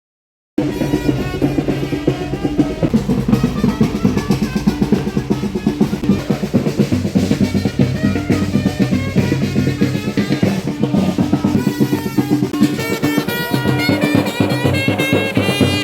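Music with busy, fast drumming under a pitched melody, starting abruptly about half a second in after a moment of silence.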